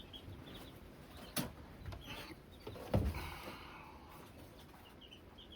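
Two sharp knocks about a second and a half apart, the second louder, over faint bird chirping in the background.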